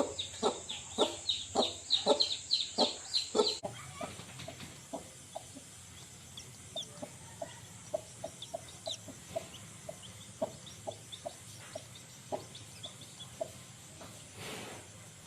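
Broody hen clucking in a quick, even rhythm, about three clucks a second, then softer, sparser clucks with a few thin, high peeps. A brief hiss near the end.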